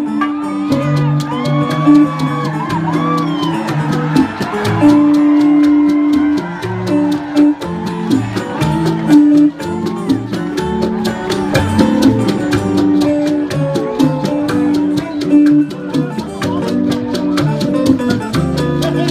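Live salsa band playing an instrumental passage with no singing. Congas, drum kit and other percussion keep a steady, busy beat under electric guitar, keyboard and bass.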